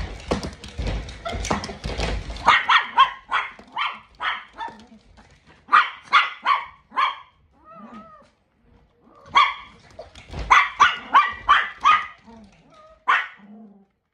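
Several pet dogs, long-haired chihuahuas and a poodle, barking in short repeated bursts, in two runs with a pause around eight seconds. A low rumble and scuffling come first, during the first two seconds or so.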